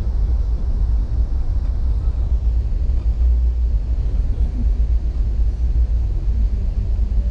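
Amtrak passenger train running at speed, heard from inside the carriage: a loud, steady low rumble of wheels and running gear on the track.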